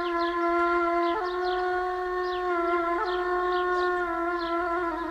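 Background score music: a wind instrument holding long, sustained notes, stepping slightly in pitch about a second in and again about three seconds in.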